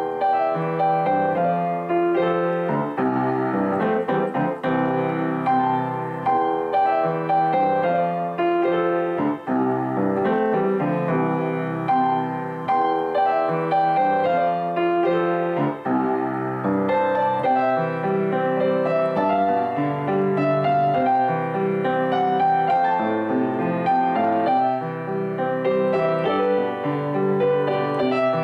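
Background music: solo piano playing a steady flowing melody with chords.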